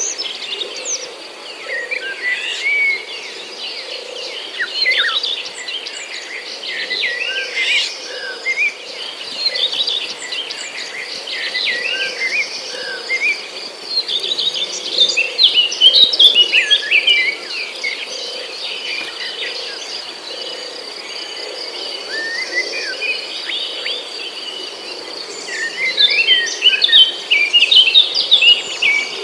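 Many birds chirping and calling over a steady, high-pitched insect trill. The bird calls are busiest and loudest about halfway through and again near the end.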